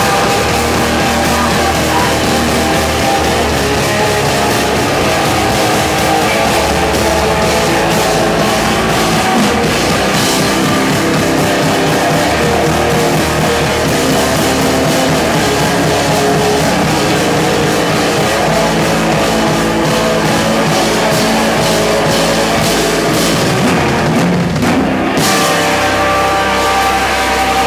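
A post-metal band playing loud and live, with distorted electric guitars over a hard-hit drum kit. About 25 seconds in, the cymbals drop away and held guitar notes ring on.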